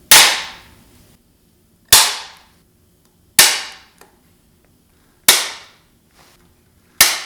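Five sharp hammer blows on metal, spaced about one and a half to two seconds apart, each followed by a short ring.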